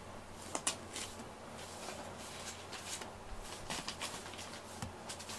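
A grooming brush stroking through a cat's fur: a series of short, scratchy swishes, about two a second.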